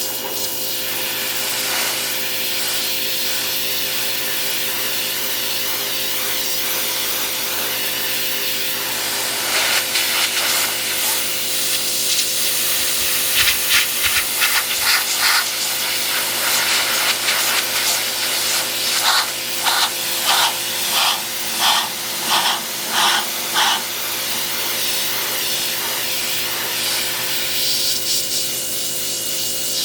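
Pressure washer running steadily, its jet hissing against a car's bodywork. Past the middle the spray comes in louder short surges, a quick run of them about twice a second, then settles back to a steady hiss.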